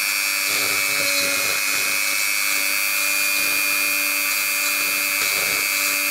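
Small handheld electric rotary tool with a 1 mm milling bit running with a steady high whine, milling a window opening into a 3D-printed PLA plastic part.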